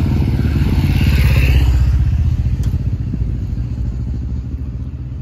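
Motorcycle engine running as the bike rides past close by, loudest about a second and a half in, then fading as it moves away.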